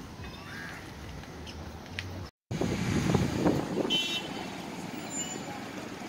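Outdoor street ambience with vehicle and traffic noise, steady at first; a brief total dropout a little over two seconds in, after which the noise is louder, with a short high-pitched call about four seconds in.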